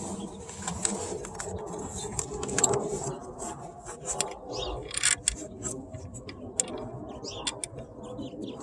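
Metal tools and bolts clinking and scraping during work on a car's engine mount, with irregular clicks and knocks. The loudest knocks come about a third of the way in and around the middle.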